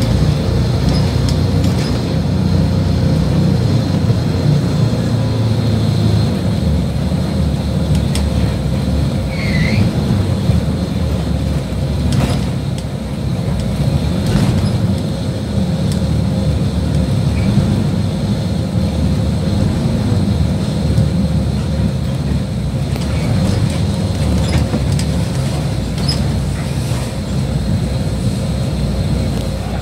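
Interior of a moving city bus: steady low engine and road rumble, with a few sharp knocks from the body.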